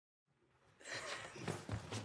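Silence, then about a second in, the room sound of a film scene fades in: a steady hiss with a faint hum and a few soft knocks.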